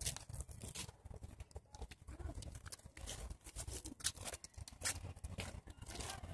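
Footsteps of someone walking on a concrete sidewalk, irregular clicking scuffs over a low rumble.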